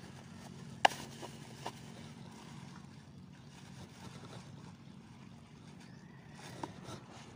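A plastic bag and plastic tub being handled and opened: one sharp snap about a second in, then a few fainter clicks, over a steady low hum.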